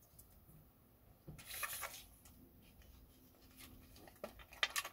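Faint handling of wooden battens and a tape measure while measuring: a short scrape about a second and a half in, then a few light clicks near the end.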